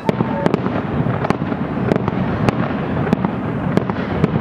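Fireworks finale: many aerial shells bursting in quick succession, a continuous rumble with sharp pops several times a second.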